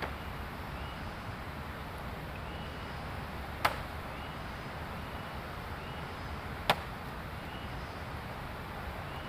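Two sharp chopping strikes, about three seconds apart, over a steady hiss, with a faint short chirp repeating every second or two.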